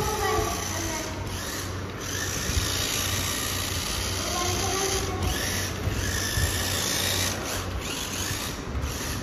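Toy RC rock crawler's small electric drive motors and gearbox whirring steadily as it drives across a hard floor, pulling a second toy car on a tow line.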